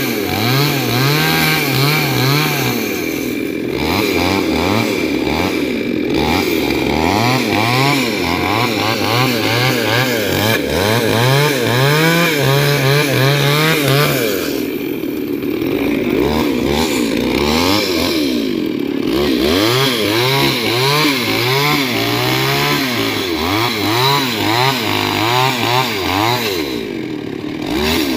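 Two-stroke chainsaw running hard through teak wood, its engine pitch wavering up and down as the load changes, easing off briefly several times.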